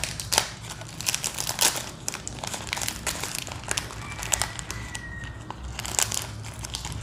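Foil wrapper of a wafer pack crinkling and crackling in irregular bursts as hands handle it and open it.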